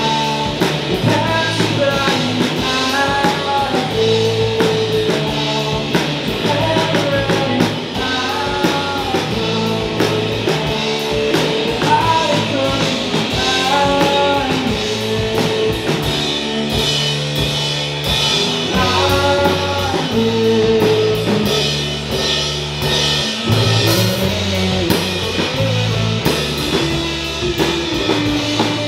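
Live rock band playing: distorted electric guitar, electric bass and a Ludwig drum kit, with the guitar carrying a sliding melodic line over steady bass notes and drums.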